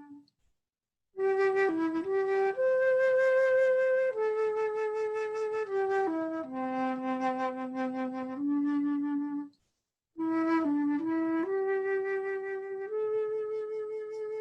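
Calm instrumental music: a single unaccompanied melody of slow, held notes, broken by two short pauses between phrases, one about a second in and one a little past the middle.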